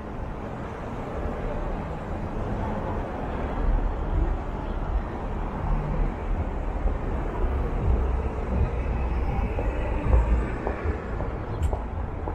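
City street traffic: cars driving past close by, with a low engine and tyre rumble that builds a few seconds in.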